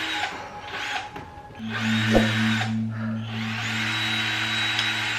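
A power tool whirring in three runs, each rising at the start, over a steady low hum.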